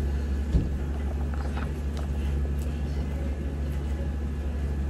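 A steady low hum of background noise, with a soft low thump about half a second in and a few faint small clicks of a man eating rice with his fingers.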